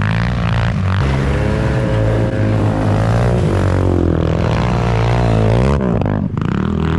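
Off-road vehicle engine running loud, its pitch rising and falling as the throttle is worked, then dropping away suddenly near the end.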